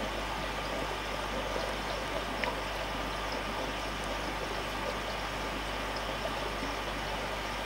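Aquarium air stone bubbling steadily, a continuous fizzing, crackling trickle of fine air bubbles rising through the water, over a steady low hum.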